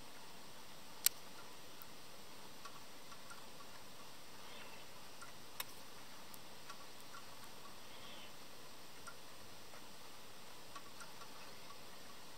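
Small, irregular clicks and taps from a house finch pecking and cracking sunflower seeds at a wire-mesh tube feeder, over a steady hiss. Two sharper, louder clicks come about a second in and at about five and a half seconds.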